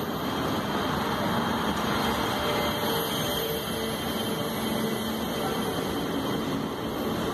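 Passenger train hauled by an electric locomotive running through a station, its coaches rolling past at speed: a steady rumble of wheels on rails with a faint, intermittent hum.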